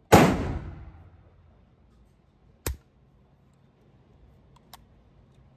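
A single shot from a Century Arms VSKA AK-pattern rifle in 7.62×39mm, its loud report echoing and dying away over about a second in the indoor range. About two and a half seconds later comes a shorter, quieter sharp crack, then a couple of faint clicks near the end.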